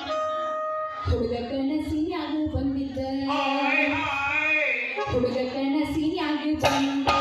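Live singing into microphones with musical accompaniment, amplified through stage speakers; a long held note with a wavering vibrato sits in the middle.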